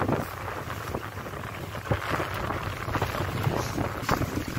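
Sea water splashing and slapping against the side of a rigid inflatable boat, a dense crackling wash of small splashes over a low rumble.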